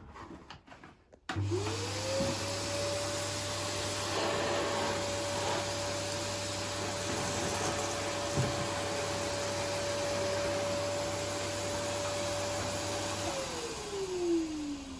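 Kärcher T10/1 canister vacuum switched on about a second in, its motor whine rising quickly to a steady pitch as it cleans sawdust and grit off a carpet. It is switched off near the end and the motor winds down with a falling whine.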